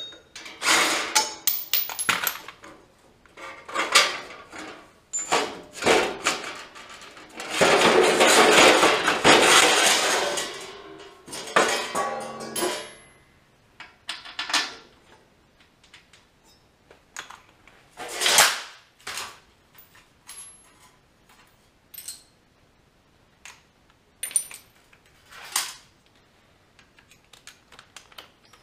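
Metal clinks and clanks of bolts, sockets and hand tools being handled against steel, scattered throughout, with a cordless drill running for about three seconds partway through.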